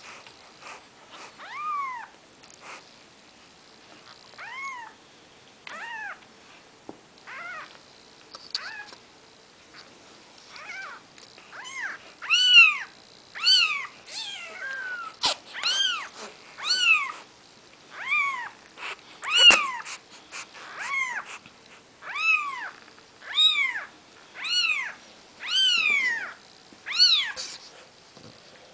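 Four-day-old Maine Coon kittens crying with thin, high mews, each rising then falling in pitch. The cries come singly and sparse at first, then from about twelve seconds in grow louder and follow at about one a second.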